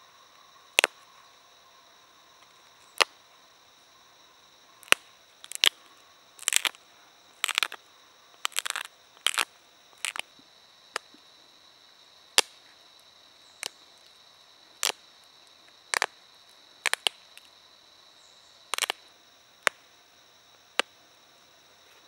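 Flint pressure flaking: sharp snaps as small chips are pressed off the edge of a flint blade with a hand-held pressure flaker, the blade held in a leather pad, shaping a Solutrean shouldered point. About twenty irregular clicks, some coming in quick clusters of two or three.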